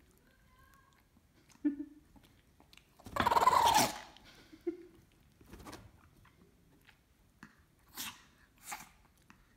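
Dog sneezing: one loud sneeze about three seconds in, followed by several shorter, quieter sneezy bursts near the end.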